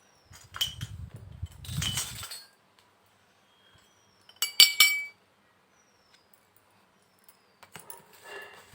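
Small hard pieces of a miniature toy kitchen set clinking and knocking together as they are handled, in three clusters: a handling rumble with clinks near the start, a loud sharp clink about halfway through, and lighter clinks near the end.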